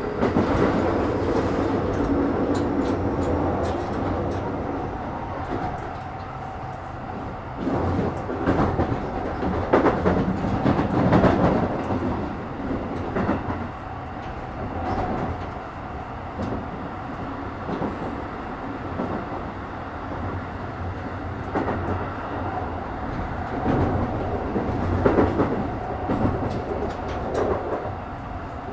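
Keikyu 1000 series (1890 subseries) electric train running along the line: a steady rolling rumble with a faint steady whine, and repeated clacks of the wheels over rail joints that come thickest about a third of the way in and again near the end.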